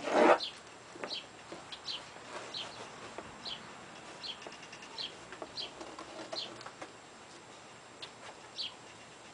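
A small bird chirping repeatedly, with short high chirps coming about once every three-quarters of a second and a pause near the end. A brief, louder noise sounds at the very start.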